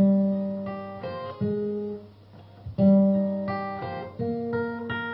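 Acoustic guitar playing a song intro: chords strummed roughly once a second, each left to ring and fade before the next.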